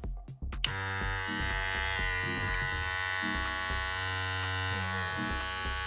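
Cordless hair clipper running with a steady, even-pitched motor buzz, starting about half a second in after a brief dropout.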